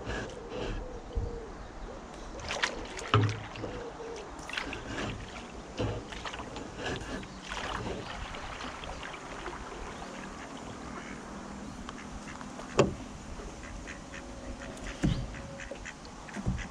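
Kayak paddling on calm water: the paddle dipping and splashing, water dripping off the blade onto the deck, with scattered light clicks and knocks.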